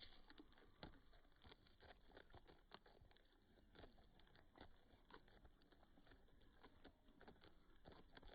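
Faint, irregular patter of small taps and clicks, several a second, like chickens pecking and scratching.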